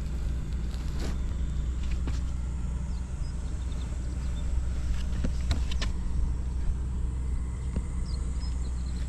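Buell XB12SS Lightning's 1203 cc air-cooled V-twin engine idling steadily, with a few faint ticks over it. The seller describes the engine as running with no abnormal noise.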